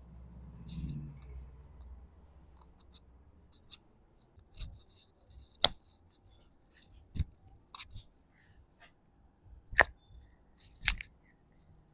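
Spinal and other joints cracking under a chiropractic adjustment: a series of short, sharp clicks and pops spread over the second half, the loudest about five and a half and about ten seconds in. There is a soft low rustle of body movement about a second in.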